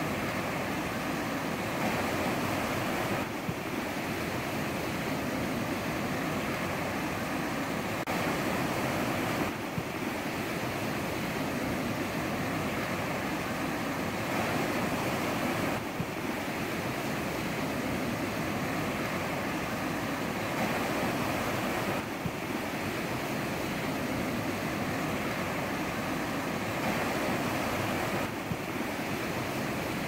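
Ocean surf washing on a shore, a steady rush that swells briefly about every six seconds.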